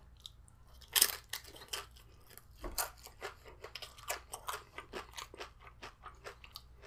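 A person bites into a tortilla chip loaded with burrito-bowl filling and chews it. There is one loud crunch about a second in, then a run of crisp crunching as the chip is chewed.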